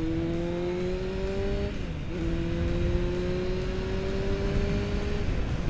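Sport motorcycle engine pulling under acceleration, its pitch climbing steadily, with two upshifts where the pitch breaks and drops, about two seconds in and near the end, over steady wind rush.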